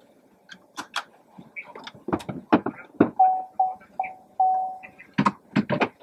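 A string of sharp clicks and knocks. Near the middle come four electronic beeps at one pitch, three short and a longer one.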